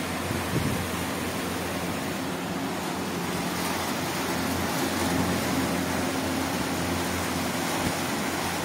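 Air cooler's newly fitted 18-inch single-phase, single-speed exhaust fan running, its iron blades moving air: a steady rush of air over a low motor hum.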